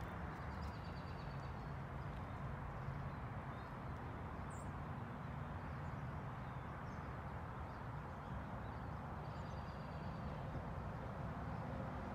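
Outdoor ambience: a steady low rumble and hiss, with a few faint high chirps near the start and again about ten seconds in.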